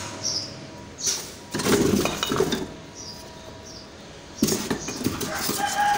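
Loose wooden slats knocking and clattering against one another as they are handled and dropped into a foam box, in three short bouts of knocks.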